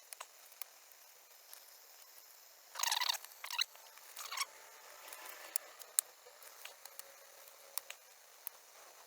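Plastic squeaking in two short bursts about three seconds in, with scattered small clicks, as the laptop's keyboard and its glued plastic fixings are worked apart.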